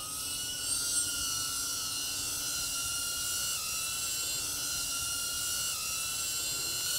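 DJI Avata FPV drone's ducted propellers whining at a steady high pitch as it hovers low, the pitch dipping briefly twice.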